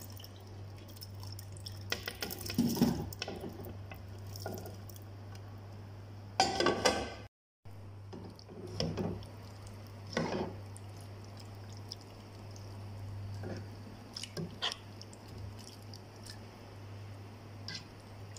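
Chicken pieces tipped from a bowl into a pan of butter chicken curry sauce and stirred in with a metal spoon: wet squelching, with the spoon scraping and clinking against the pan. The loudest spells come about three and seven seconds in, over a steady low hum.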